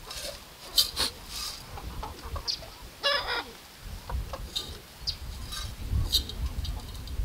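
Backyard chickens clucking, with one short squawk about three seconds in. A few sharp clicks sound in the first second and a half, and a low rumble runs through the second half.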